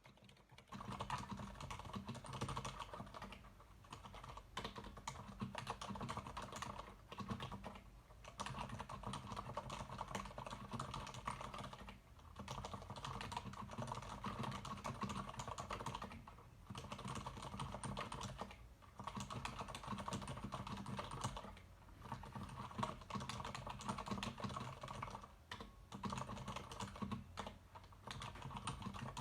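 Leopold FC900R PD mechanical keyboard with Cherry MX Silent Red (low-noise linear) switches being typed on: a fast, continuous stream of muted keystrokes that starts about a second in and breaks off for short pauses every few seconds.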